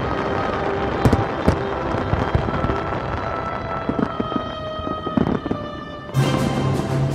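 Fireworks going off in scattered sharp bangs over steady background music; the music swells suddenly louder about six seconds in.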